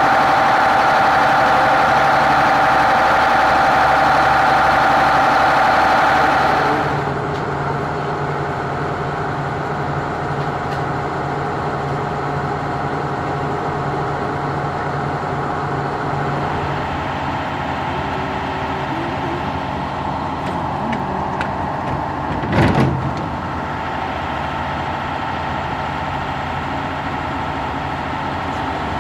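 Red Hen railcar's underfloor six-cylinder diesel engines idling steadily, loud and close at first, then quieter after about seven seconds. A single sharp clunk comes about two-thirds of the way through.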